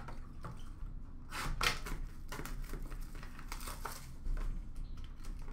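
Hands handling sealed trading card boxes and their plastic wrap: crinkling and rustling in short, irregular bursts, strongest about a second and a half in and again near four seconds.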